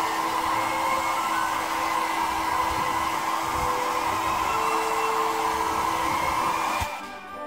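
Hand-held hair dryer blowing steadily, then switched off suddenly near the end.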